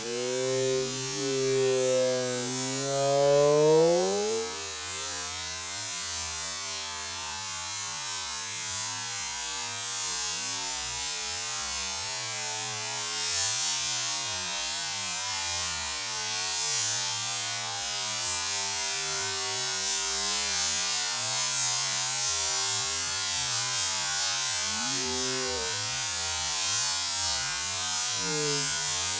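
A small motor buzzing over a steady hiss; its pitch climbs sharply about four seconds in, then it runs lower and steadier.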